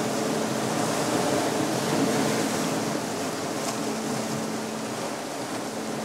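Sea surf washing over rocks, with a steady low humming tone held underneath.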